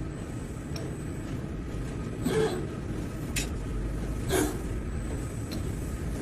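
Servo pump-controlled CNC press brake running with a steady low hum, broken by three short clinks and knocks about two, three and four seconds in.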